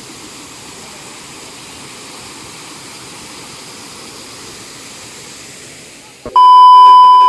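Steady rush of flowing water, then about six seconds in a loud, steady electronic beep at one pitch cuts in for about a second.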